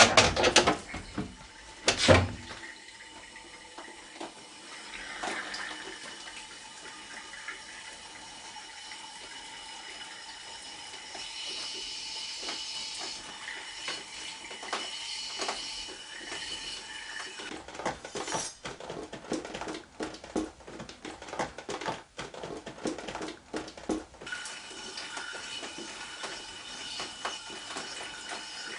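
Water running from a wall tap into a plastic bucket, a steady splashing hiss. Sharp knocks about two seconds in and a run of clicks and clatter in the second half come from things being handled.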